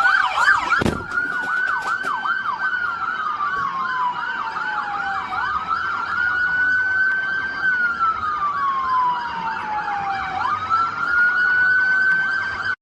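Several police car sirens sounding together, some in a fast repeating yelp and others in a slow wail that rises and falls, with a single thump about a second in. The sound cuts off suddenly near the end.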